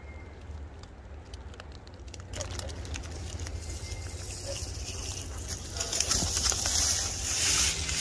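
Rain pattering, with wind rumbling on the microphone. The patter grows louder about two seconds in and is loudest near the end.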